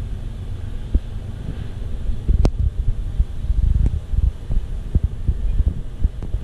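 Wind buffeting the microphone: an uneven low rumble that rises and falls in gusts, with a sharp click about two and a half seconds in.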